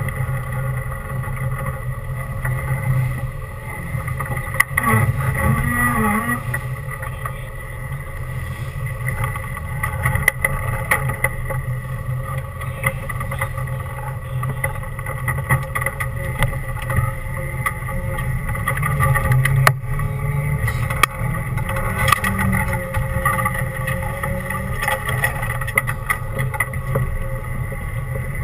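Off-road 4x4's engine running at low speed as it crawls along a rough trail, its pitch rising and falling a little with the throttle. Occasional sharp knocks are heard as it goes over bumps.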